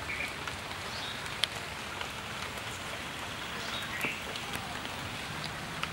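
Steady outdoor background hiss with scattered small ticks, one sharper tick about a second and a half in, and a few short, faint high chirps.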